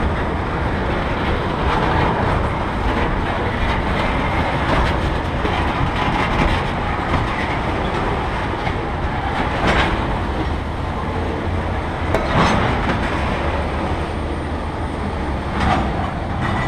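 Freight train of tank cars rolling past on the rails, a steady rumble with wheels clicking over rail joints. A few brief, sharper wheel sounds stand out. The last car goes by partway through.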